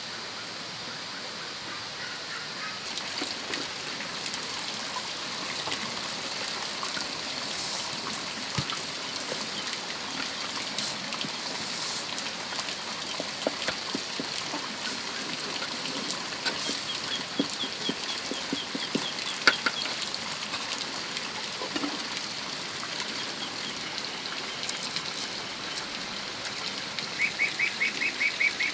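Farmyard birds calling, among them fowl, with a rapid chattering trill of calls near the end, over a steady high hiss and scattered light knocks.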